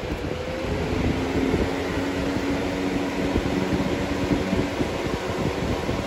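Lasko Cool Colors box fan, model B20301, running steadily: an even rush of air with a low motor hum under it.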